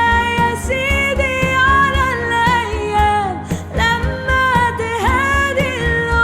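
Pop music with a singing voice in long, sliding wordless runs over a steady bass beat.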